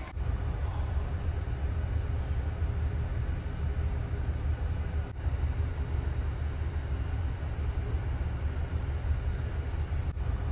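Steady low rumble of a large car ferry under way: engine and hull noise carried through the ship.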